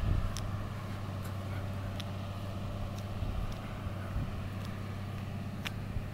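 A motor vehicle driving along a road at steady speed: a steady low engine hum, with light clicks or rattles every second or so.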